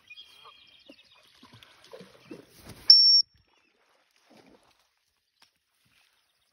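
A short, steady, high-pitched whistle blast lasting about a third of a second, about three seconds in, just after a brief thump, as a training bumper is sent out over the water for a dog's water retrieve. Before it, faint rustling and a couple of brief, soft high tones.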